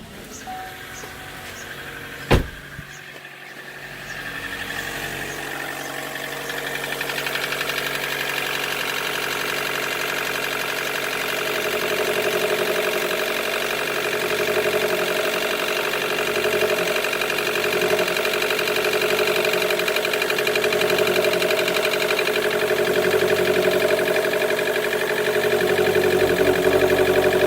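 2013 Chevy Volt's 1.4-litre four-cylinder range-extender engine running, growing gradually louder, with a sharp click about two seconds in. The engine misfires and idles roughly, a fault that a new MAF sensor, spark plugs and coil pack have not cured.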